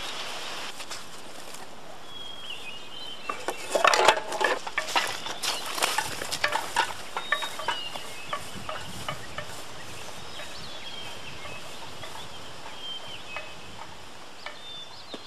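Rustling and clattering as a pack and rifle are gathered up and shouldered, loudest about four seconds in, then fading footsteps swishing through tall grass, with a few short high chirps now and then.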